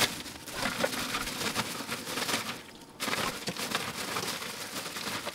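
Ice cubes poured from a plastic bag into a metal ice box, clattering and crackling as they tumble in, with the bag crinkling. The sound thins out briefly about three seconds in, then picks up again.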